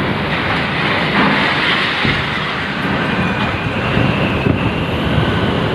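Cyclone-force wind with driving rain: a loud, steady rushing noise.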